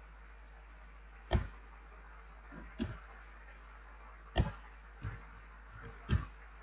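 Computer keyboard keys pressed one at a time: about six separate clicks at uneven spacing, over a low steady hum.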